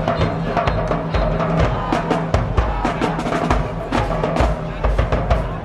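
High school marching band drumline playing a fast cadence of snare hits over pounding bass drums.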